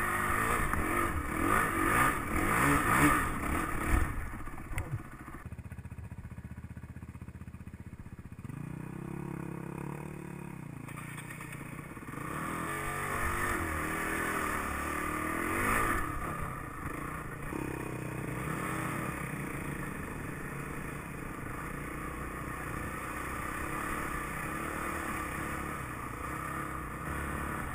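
Honda dirt bike's engine running on a trail ride, revving up and down with the throttle, with rattling over rocky ground in the first few seconds. About halfway through it splashes through a muddy puddle.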